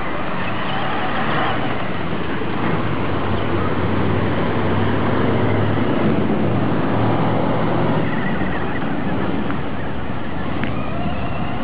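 Traxxas Slash RC short-course truck driving through a shallow puddle and over gravel: its motor and tyres running under a steady noisy haze, with level swelling and easing as it goes.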